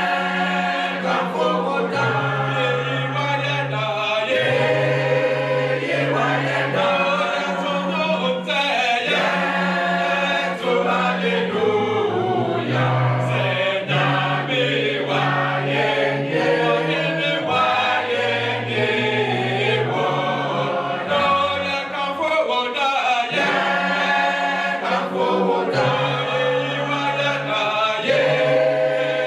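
Choir singing a cappella in parts, unaccompanied voices with a low line holding notes that change every few seconds.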